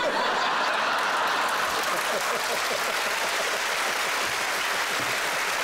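Studio audience applauding, starting suddenly and holding steady.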